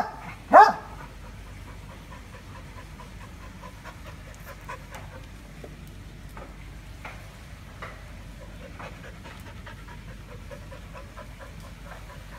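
A dog barks once, loudly, about half a second in, then pants steadily.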